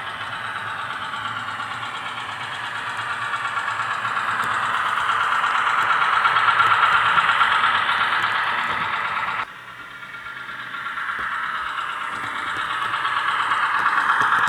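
Diesel engine sound from the ZIMO sound decoder of a Roco H0 model of the NS series 200/300 shunting locomotive, played through its small built-in speaker. The engine note builds and runs harder, drops suddenly about nine and a half seconds in, then builds again.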